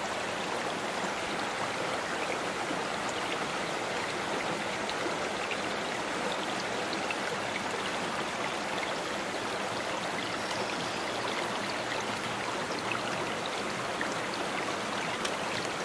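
Small shallow creek running over rocks between boulders: a steady rush of water with small splashes and trickles.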